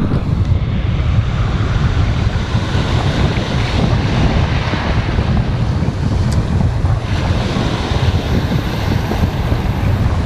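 Surf breaking and washing in the shallows, with steady wind rumble on the microphone.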